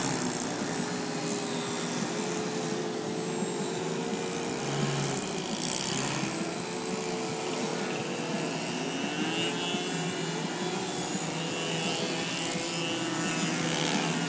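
Several radio-controlled 3D profile aerobatic planes hovering together, their propellers and motors making an overlapping buzz whose pitches keep rising and falling as the throttles are worked to hold the hover.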